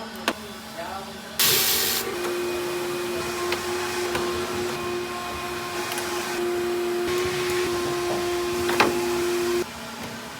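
Electric pressure washer spraying: a loud hiss as the spray starts, then the motor runs with a steady hum under the hiss of water and cuts off suddenly near the end.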